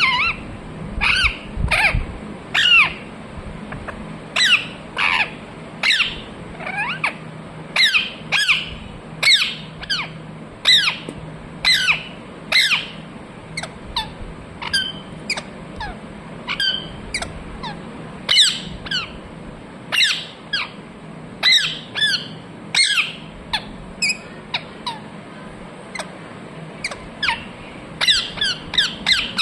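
Ringneck parrot giving short, sharp calls over and over, about one or two a second, each dropping in pitch.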